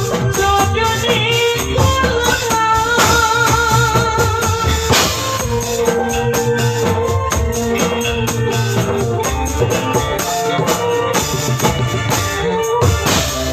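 Music: a hand-played tambourine jingling in a fast, even rhythm over drums, with a wavering melody line on top.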